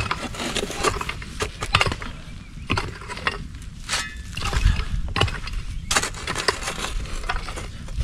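Digging by hand with a mattock and shovel: irregular knocks and scrapes of metal tools striking and scooping earth, roughly one every second.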